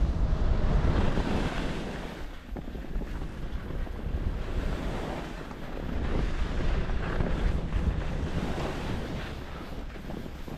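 Wind rushing over the camera microphone of a skier moving downhill, mixed with the hiss of skis sliding on packed snow. It swells and eases in slow waves, dipping about two seconds in and building again past the middle.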